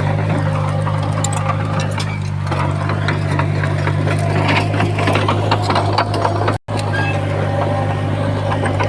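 Komatsu bulldozer's diesel engine running steadily under a dense clatter of clicks and rattles. The sound cuts out for an instant about two-thirds of the way through, then carries on.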